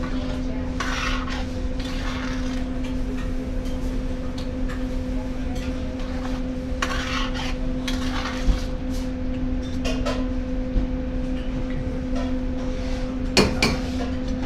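Kitchen clatter of pots, pans and utensils: scraping and a few sharp clinks, the sharpest near the end, over a steady low hum.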